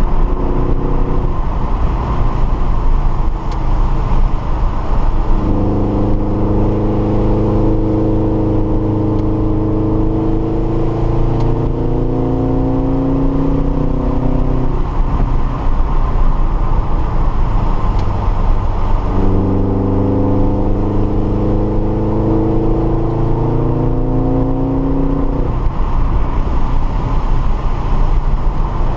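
Subaru BRZ's 2.0-litre flat-four engine heard from inside the cabin, pulling hard twice, rising in pitch, about six seconds in and again around nineteen seconds, with a step down in pitch partway through each pull. Between the pulls the engine drones lower over steady road noise.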